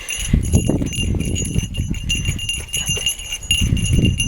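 A small collar bell on a deaf old dog jingling continuously as she plays, with low growling play noises from the dogs underneath.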